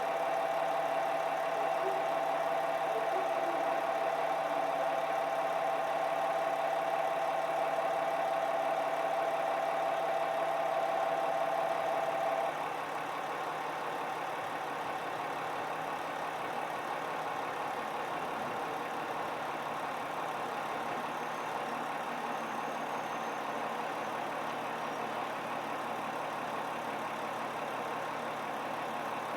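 A train standing at the platform hums steadily with its machinery running. A steady high tone sounds over it and cuts off about twelve seconds in.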